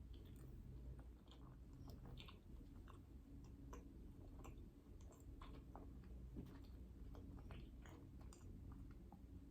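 Faint chewing and mouth sounds of someone eating dessert: irregular soft clicks and smacks, several a second, over a low steady hum.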